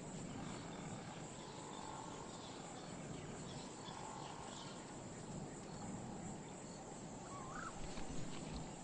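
Faint, steady natural outdoor ambience of the savanna, with a single short chirp near the end.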